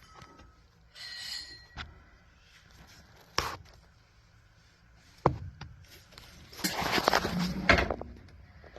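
Scattered clicks and knocks with a short metallic scrape about a second in, then a busy run of knocks and rattles near the end: hand-working sounds on an air-conditioning unit.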